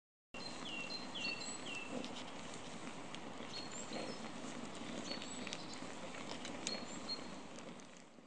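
Wood fire crackling with sharp pops over a steady hiss, with birds chirping, three quick falling chirps close together near the start and a few more later. It starts suddenly and fades out at the end.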